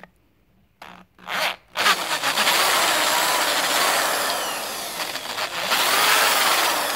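Corded electric drill boring a 5/16-inch twist bit into a DOD oil port in the lifter valley of a 5.3 V8 engine block, opening the hole up to be tapped and plugged. Two short trigger pulls about a second in, then the drill runs loud and continuous with the bit cutting.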